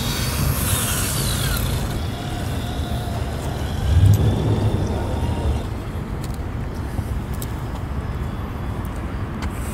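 Brushless-motored Traxxas TRX-4 Sport RC truck driving on pavement, its motor whine rising and falling in pitch near the start. There is a brief low rumble about four seconds in, then scattered clicks as the truck crawls up a curb.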